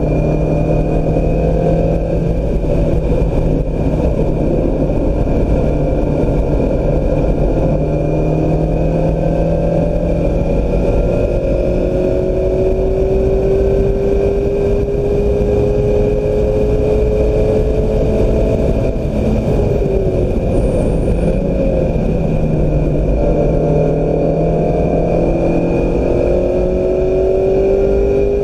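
2016 Mazda MX-5 Miata's 2.0-litre four-cylinder engine pulling hard at track speed. Its pitch climbs slowly through long pulls, drops briefly about two-thirds of the way in, then climbs again, over steady road and wind noise.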